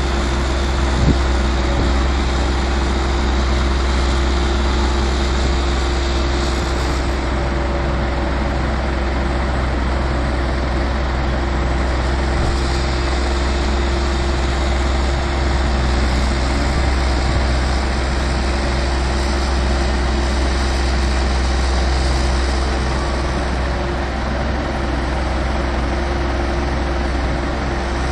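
Diesel engines of a Hitachi EX130 excavator loading manure and a Valtra N142 tractor running steadily with a strong low hum, and a brief knock about a second in.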